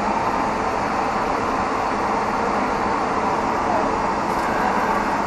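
Steady in-flight cabin noise of a Boeing 737 airliner, a constant roar of engines and airflow heard inside the lavatory at cruise.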